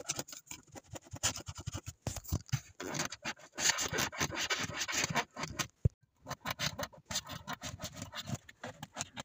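Plastic boot trim panels being handled and pushed into place: irregular scraping, rubbing and clicking of plastic, with a brief pause about six seconds in.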